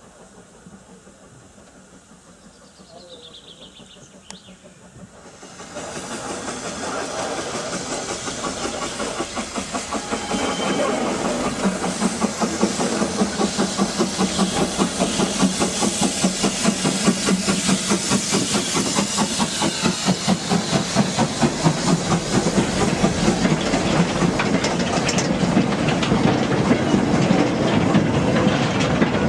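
A Hudswell Clarke side tank steam locomotive and its train of goods wagons passing close by on the adjacent track. Faint at first, then from about six seconds in a loud, rhythmic clatter of wheels over the rail joints that grows louder as the wagons go past.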